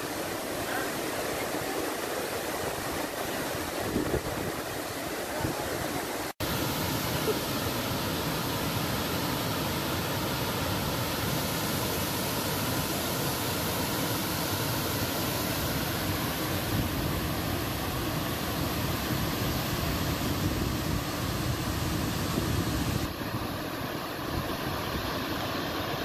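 A waterfall rushing steadily as it pours over rock ledges into a pool. The sound drops out for an instant about six seconds in where one shot cuts to the next.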